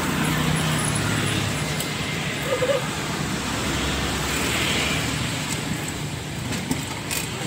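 Street traffic: motorbikes and cars passing on the road, a steady rumble with one vehicle swelling past about midway.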